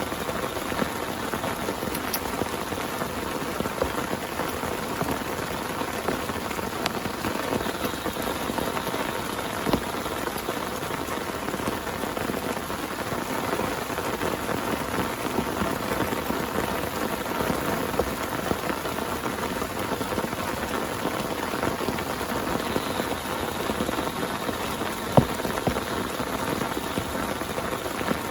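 Heavy rain falling on a tent: a dense, steady hiss of drops, with one sharper hit near the end.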